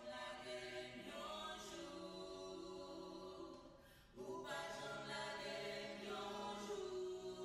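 Soft music of long held chords, changing to a new chord about a second in, fading out briefly just before the middle, then coming back with another held chord.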